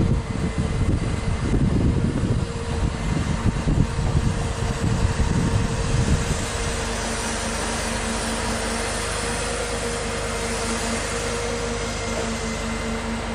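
Truck-mounted loader crane's engine and hydraulic pump running steadily, a constant mechanical hum with a held tone. Wind buffets the microphone for the first six seconds, then only the even drone remains.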